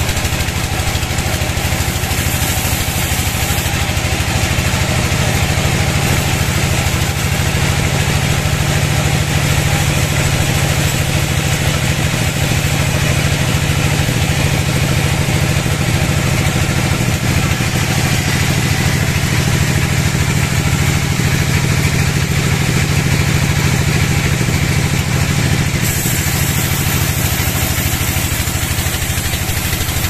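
Vertical band sawmill running steadily, its band blade cutting lengthwise through a log, over the even drone of the motor that drives it.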